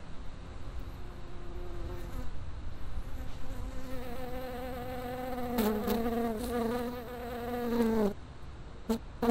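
A fly buzzing in a 3-D binaural sound effect, its drone wavering in pitch and growing louder, then cutting off abruptly about eight seconds in, with two short buzzes after.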